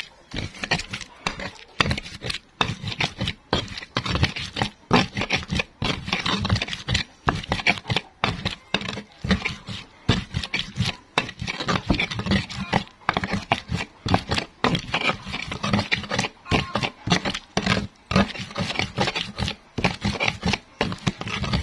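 Stone pestle grinding chilli and spice paste in a stone mortar (Indonesian cobek and ulekan): rough scraping strokes, each with a low thump, at about three a second.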